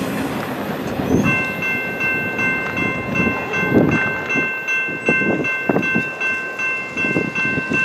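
General Signals Type 2 electronic crossing bell ringing a quick, even ding-ding-ding, about three strokes a second, starting about a second in, as the crossing gates rise after the train has cleared.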